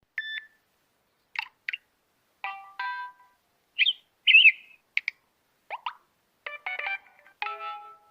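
Samsung Galaxy J1 Ace notification sounds played one after another: about eight short electronic chimes and blips, each a different tone, with brief silences between them.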